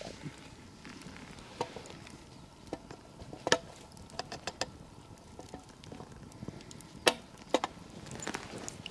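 Wood campfire crackling with sharp irregular pops, while a wooden stick stirs in a metal pot. The loudest cracks come about three and a half and seven seconds in.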